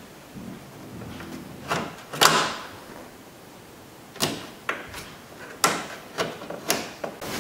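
Plastic push-pin retainers being pressed into the plastic cover over the intake duct: about eight short, sharp clicks and snaps at uneven spacing, the loudest about two seconds in.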